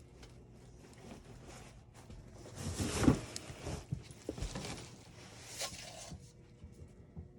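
Rustling and scraping handling noise, loudest around three seconds in, with a few dull knocks.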